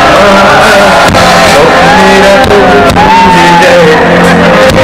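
A live rock band playing loud, with a male lead vocalist singing into a microphone over bass and drums, sharp drum hits about every half second to second.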